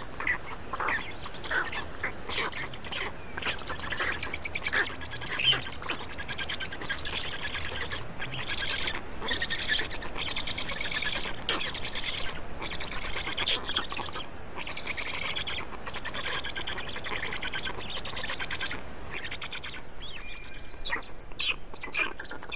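Birds chirping and calling: many short, sharp chirps, with a denser stretch of rapid repeated calls through the middle.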